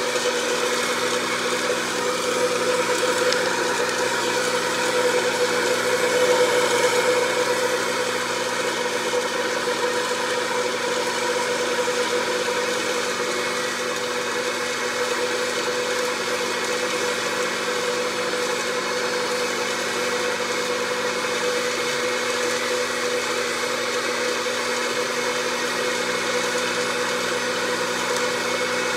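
Electric hot-air popcorn popper running, its fan motor giving a steady whirring hum that swells slightly a few seconds in.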